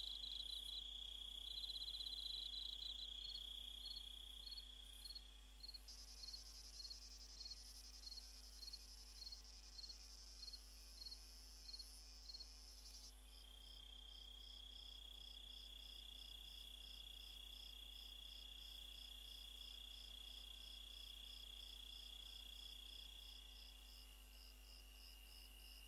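Faint chorus of chirping insects: a steady high trill with a chirp repeating about twice a second, then from about halfway a faster pulsing chirp over a lower trill. The mix switches abruptly twice, as at edits.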